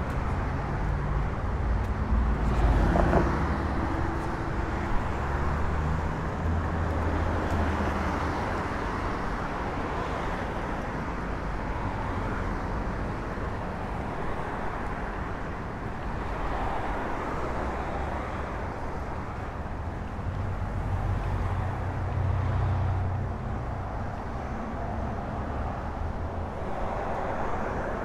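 Street traffic: a steady mix of car engines and tyre noise, with vehicles passing louder about three seconds in, around eight seconds, and again a little past twenty seconds.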